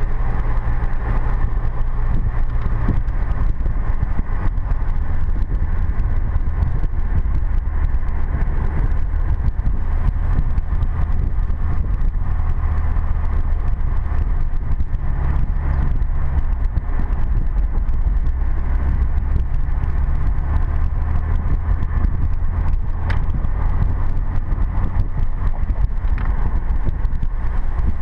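Ford F-150 pickup truck driving along a paved road, heard from inside the cab: a steady low engine and tyre drone with road noise.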